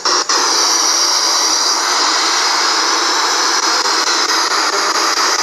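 Portable radio with its telescopic antenna out, used as a ghost box, giving a loud, steady hiss of static with no voices or music, cutting out for a moment just after it begins.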